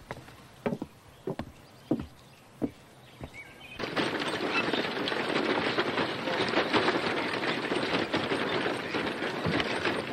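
Footsteps on wooden porch boards, about five slow steps. About four seconds in it changes suddenly to the steady bustle of a town street, with a horse-drawn buggy going by, its hooves and wheels clattering.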